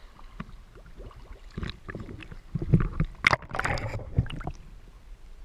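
Seawater slapping and sloshing against the camera housing at the surface, then splashing and gurgling as the camera goes under. The splashes are irregular and loudest about three seconds in.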